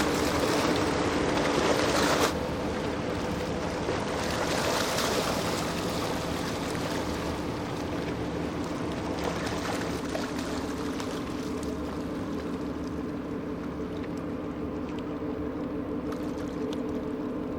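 Passing cargo ship: a steady engine hum with water rushing along the hull. The rushing is loudest at first and drops off suddenly about two seconds in.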